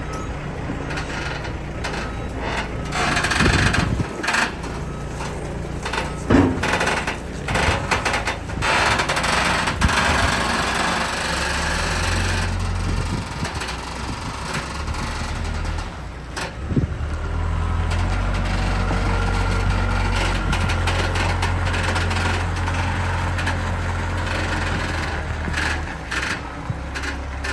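Engine of the vehicle hauling a cabin cruiser on a hydraulic boat trailer, running steadily at low speed, with scattered knocks and rattles from the rig. The engine rumble grows steadier about two-thirds of the way in.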